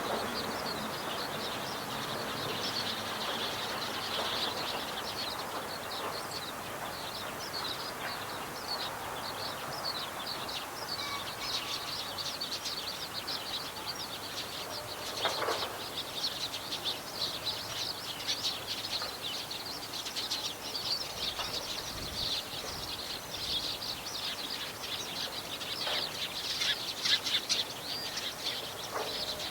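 Songbirds singing, meadow bunting song among them: a dense, unbroken run of high chirps and twitters, with a brief lower call about halfway through.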